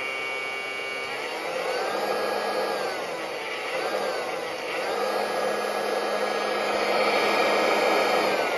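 Homemade 3D-printed electric turbocharger, an electric motor spinning a compressor wheel, running with a fan-like rush and whine. The whine rises about a second in, dips briefly around three to four seconds, climbs again and holds, then starts to wind down at the very end.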